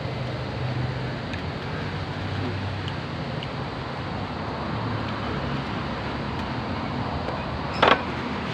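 Steady background rumble of road traffic with a low hum, and a brief loud vocal sound near the end.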